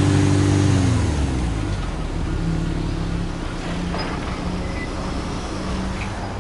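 Subaru Impreza S-GT's turbocharged 2.0-litre flat-four exhaust note: the engine is held at raised revs, then is let go about a second in, the pitch falling back to a steady idle.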